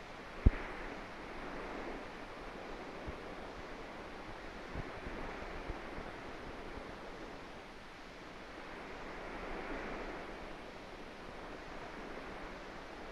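Surf and wind on a sandy coast: a steady rushing that swells and fades, with a sharp pop about half a second in and a few fainter knocks.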